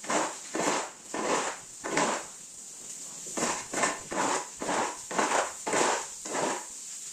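Rhythmic scrubbing or scraping strokes on a wet concrete barn floor, about two a second, as the floor is worked clean.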